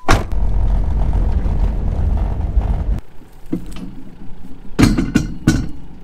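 Ute driving along, a steady low rumble heard from inside the cab. After a break about halfway, several sharp metallic clanks as the steel drawbar of a header front trailer is handled for hitching to the ute.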